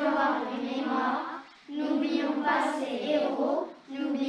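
A group of children singing a slow song together, unaccompanied. The song runs in long held phrases, with a short breath about a second and a half in and another near the end.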